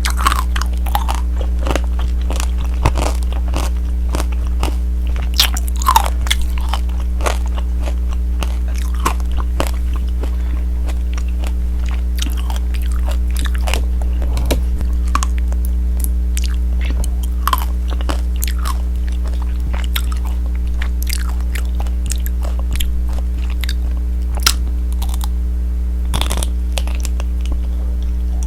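Tanghulu being bitten and chewed: the hard sugar-candy shell on the fruit crunches and cracks between the teeth in irregular sharp snaps. A steady low hum runs underneath.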